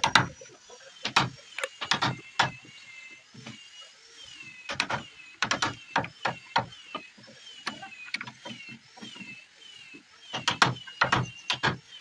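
Irregular sharp mechanical clicks and clacks of door lock hardware being worked by hand, coming in clusters with a dense run near the end.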